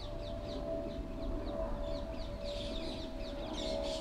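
Small birds chirping in quick, short calls over a steady hum.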